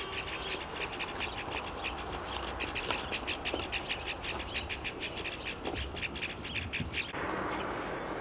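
A bird's rapid chattering call: a long string of short, high, squawky notes, roughly six a second. It breaks off abruptly about seven seconds in, leaving a steady hiss.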